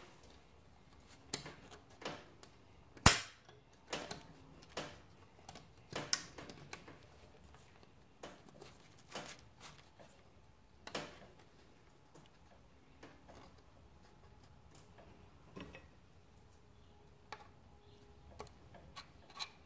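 Irregular sharp metallic clicks and taps as a wire retaining ring and servo cover are worked into a 4L60 transmission's servo bore. The loudest click comes about three seconds in.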